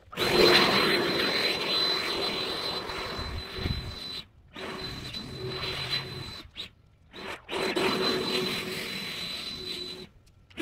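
Ryobi 40V battery-powered yard tool running with a steady high whine over a hiss. It cuts off abruptly a few times.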